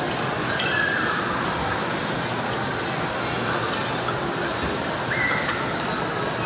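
Metal spoon and fork clinking against a bowl now and then over the steady din of a busy food court's background chatter.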